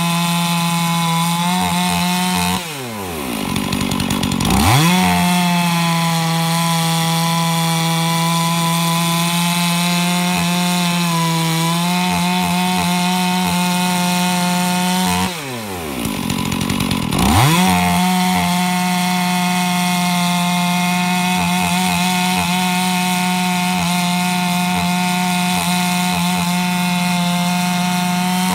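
Freshly rebuilt Stihl MS460 two-stroke chainsaw running at high speed while cutting through a log. Twice, about 3 seconds and 16 seconds in, the engine note drops away and then climbs back up to full speed.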